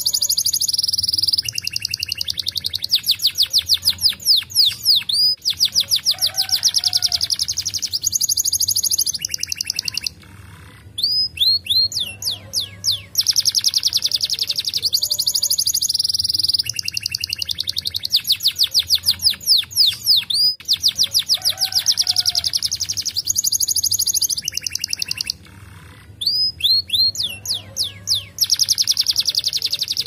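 Domestic canary singing a long, fast song of rapid high trills and rolls with quick sweeping notes, broken by brief pauses. The same song passage comes round twice.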